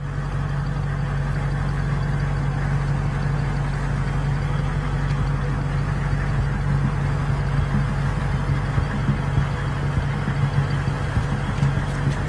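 Car driving at a steady speed: a constant low engine hum with road noise.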